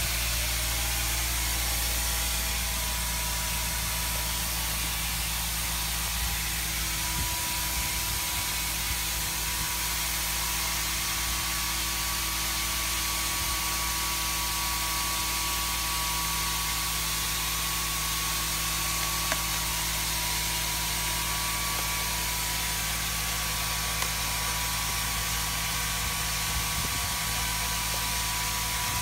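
Hydraulic rock splitter at work: the steady hum and hiss of its hydraulic power unit running under load as the splitting cylinder forces a drilled hole in the bedrock apart, with a thin steady whine that grows stronger partway through. Two faint ticks come late on.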